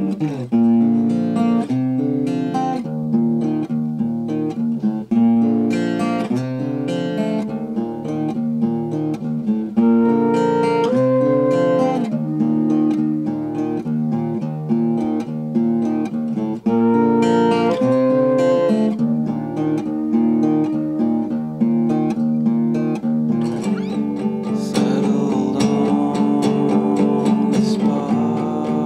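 Song recording led by acoustic guitar, picked and strummed chords in a steady flow of notes. About 24 seconds in, the sound grows fuller and brighter.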